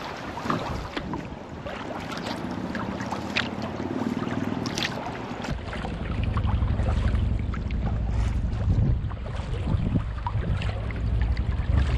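Water splashing and lapping around a sea kayak as it is paddled. About halfway through, a heavy low wind rumble on the microphone sets in beneath the splashes.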